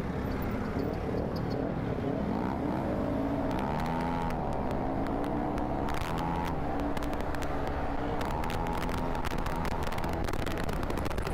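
Kymco KRV 180 TCS scooter's single-cylinder engine running on the move, its pitch rising and falling with speed, over a steady low wind rumble on the microphone.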